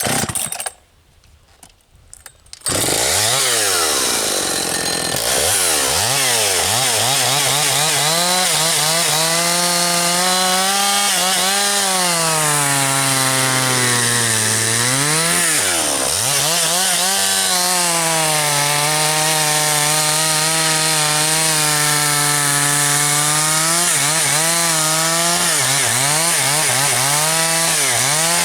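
Husqvarna 272XP two-stroke chainsaw firing up about three seconds in, then running hard, its pitch sagging and recovering several times as it cuts through wood.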